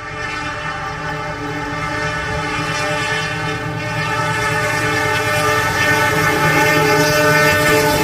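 A CC206 diesel-electric locomotive's horn blown in one long, unbroken blast: a steady multi-note chord that grows louder as the locomotive approaches.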